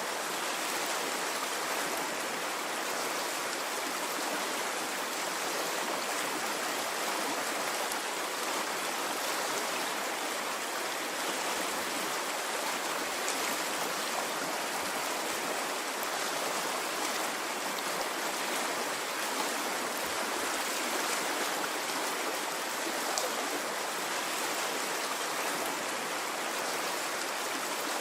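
Stream water flowing steadily: an even, unbroken rushing with a few faint splashes now and then.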